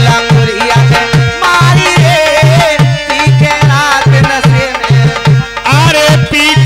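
Languriya folk music playing without vocals: a dholak keeps a steady driving beat, about two and a half strokes a second, under a wavering melody line from an electronic keyboard.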